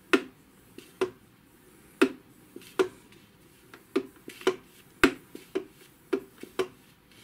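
A series of about a dozen sharp clicks, roughly one a second at first, then closer together and irregular.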